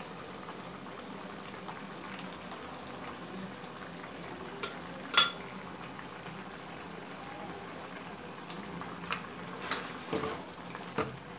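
Spinach cooking in a pan on a gas stove, a steady simmering hiss, with a few sharp clinks of a knife against a glass blender jar as tomato paste is scraped out into the pan; the loudest clink comes about five seconds in.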